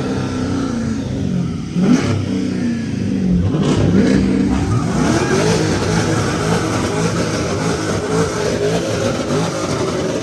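Car engine revving: several quick rises in pitch in the first four seconds, then held up at a wavering higher speed.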